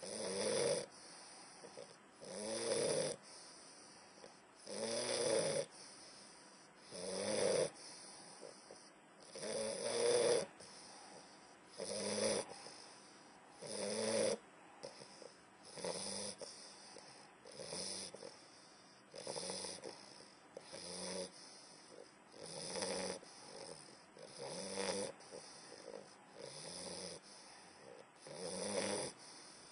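English bulldog snoring in deep sleep: a loud, rough snore on each breath, regular at about one every two seconds.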